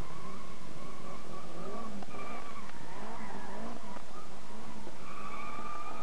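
Slalom car's engine revving up and dropping back repeatedly as it is driven hard through the cones, with its tyres squealing in the turns.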